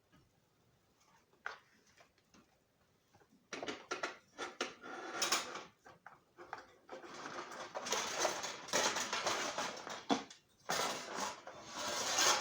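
Toy train track sections clattering and rustling as they are rummaged for and handled, with many small knocks and clicks. It starts with a few single clicks and turns into a busy clatter a few seconds in.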